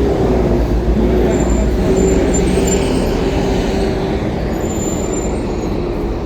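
Road traffic close by: vehicle engines running with a steady low rumble and hum.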